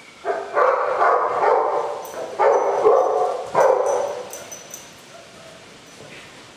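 A dog barking in three loud bouts within the first five seconds, the barks ringing in a bare, tiled room.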